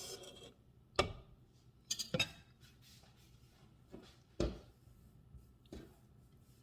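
A kitchen utensil knocking and clinking against cookware while cheese is added to a pot of pasta: about six separate sharp knocks, the loudest a pair around two seconds in and another a little past four seconds.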